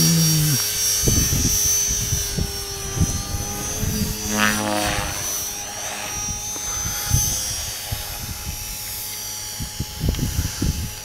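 Small electric RC helicopter (Align T-Rex 450) flying overhead, its rotor and motor giving a steady high whine that swells briefly about halfway through, with wind buffeting the microphone in gusts.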